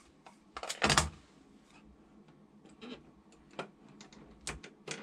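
A strip of masking tape pulled and torn from its dispenser about a second in. This is followed by a few light clicks and taps as the tape is handled and pressed onto the model car's door.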